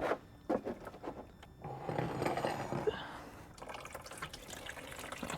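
Engine coolant draining out of the car and splashing as it pours. A couple of sharp clicks near the start, then the pouring is strongest for about two seconds before settling to a fainter steady trickle.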